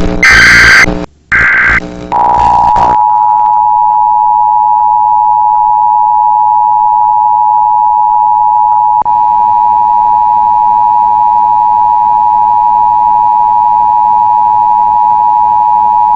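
Emergency Alert System test signal: two or three short, harsh data bursts of the digital header, then the steady two-tone EAS attention signal starting about two seconds in and holding unbroken.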